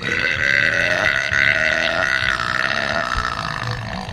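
A woman's long, drawn-out burp. It starts suddenly, holds a fairly steady pitch for about four seconds and tapers off near the end.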